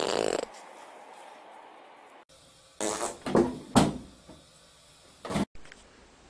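Fart noises: a loud one at the start, then several short ones in quick succession around the middle, and one more brief burst near the end.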